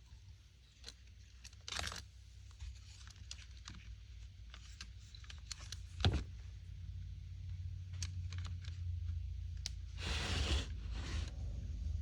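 Small clicks and rattles of the Echo CS-355T chainsaw's plastic top-handle parts, trigger and spring being handled and fitted together, with one sharper knock about six seconds in and short rustles near the start and end. A low steady hum runs underneath.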